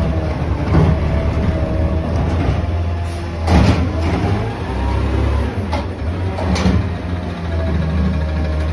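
Diesel engine of a McNeilus automated side-loader garbage truck running steadily while its hydraulic arm tips a trash cart and lowers it back down. A loud clatter comes about three and a half seconds in, and lighter knocks follow a few seconds later.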